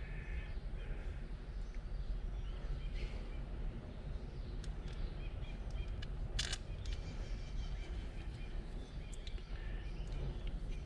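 Outdoor background noise with scattered bird chirps and one sharp click about six and a half seconds in.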